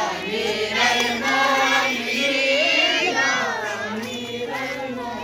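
A group of people's voices chanting together in a sustained, melodic way, with several voices overlapping.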